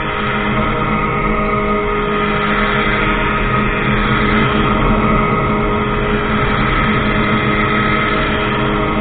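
Ultralight aircraft's engine and propeller running steadily at constant power, an even, unbroken drone.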